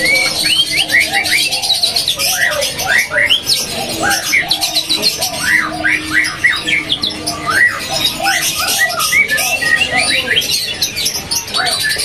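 Caged white-rumped shamas (murai batu) and other songbirds calling and singing at once: a dense, overlapping chatter of short rising and falling notes. The shamas are warming up and starting to bring out their song repertoire.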